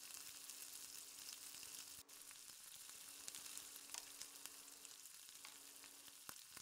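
Hot oil sizzling softly around pieces of egg-and-flour dough frying in a pan, with fine crackling and a faint click near the end.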